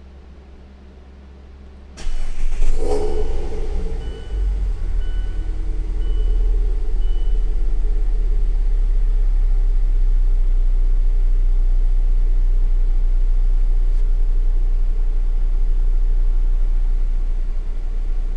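ND Mazda MX-5 Miata's 2.0 L SkyActiv four-cylinder, fitted with a Skunk2 Alpha 4-1 header and Remark cat-back exhaust, starting up about two seconds in. The starter catches into a sharp flare of revs that dips briefly, then settles into a steady idle. Heard from inside the cabin with the windows down.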